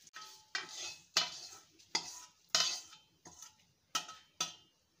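A steel spatula scraping and knocking against a stainless steel kadai while stirring a tempering of onion, garlic and curry leaves in oil, about eight short clinking strokes at an uneven pace.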